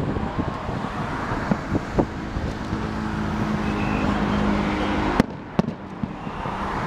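Aerial fireworks going off: scattered sharp pops and bangs over a constant noisy rumble, the loudest bang a little past five seconds in. A low steady hum runs under the middle few seconds.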